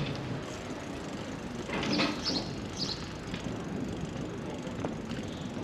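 Steady outdoor background noise of a busy waterfront promenade, with a short cluster of sharp clicks and clatters about two seconds in.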